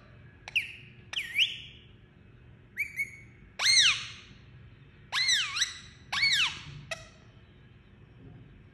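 Indian ringneck parakeet giving a string of short, sharp whistled calls. Some are quick chirps, and the louder ones about three, five and six seconds in swoop up and down in pitch.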